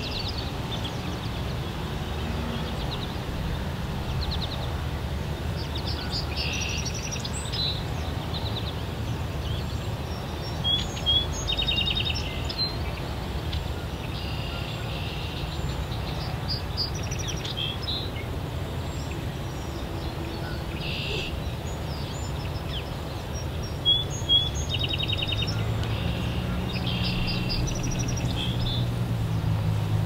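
Several small birds chirping and trilling in short repeated phrases, with a couple of louder, sharper calls standing out, over a steady low rumble that turns into a more even hum near the end.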